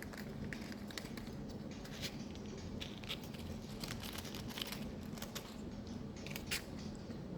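Irregular crisp crackles and clicks of dried cedar and pine burning in an abalone shell, over a steady low hum.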